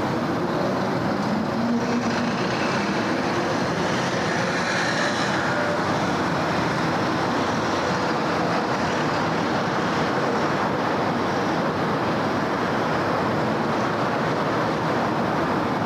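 Steady city road traffic: a continuous, even wash of tyre and engine noise with no single vehicle standing out.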